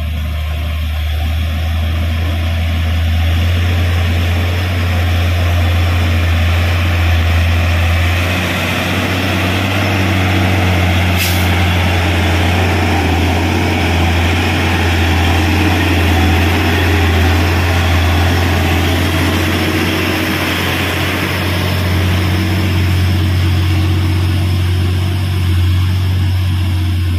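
Hino 500 FM 260 JD truck's six-cylinder diesel engine working up a steep dirt climb as the truck passes close by, a steady deep drone.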